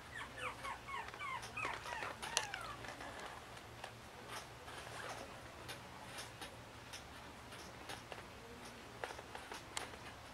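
Two-month-old teacup Maltese puppy whimpering, a quick run of short, high, falling squeaks over the first three seconds, then only faint scattered clicks and rustles.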